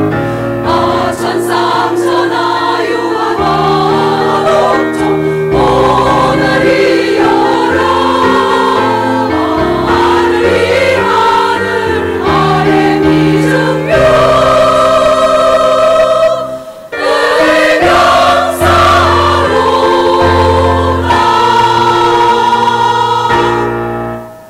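Women's choir singing a Korean-language song over instrumental accompaniment, with a short break in the sound about two-thirds of the way through; the song closes on a held chord that stops just before the end.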